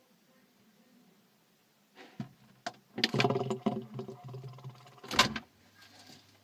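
Bottles and items clattering on fridge shelves, then the fridge door shutting with a thud about five seconds in, followed by a faint steady low hum.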